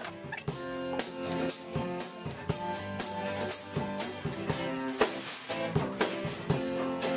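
Background music with guitar and drum kit, on a steady beat of about two strokes a second.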